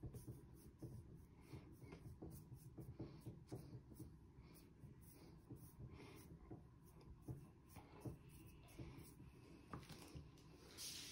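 Faint, quick, irregular strokes of a paintbrush spreading acrylic paint across a toilet seat lid, with a brief soft rustle near the end.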